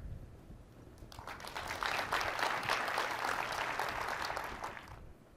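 Audience applauding, starting about a second in, swelling, and fading out near the end.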